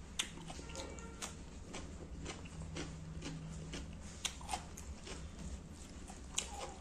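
Close-miked eating sounds: chewing with several sharp crunches of raw cucumber, and fingers squishing curry-soaked rice on the plate.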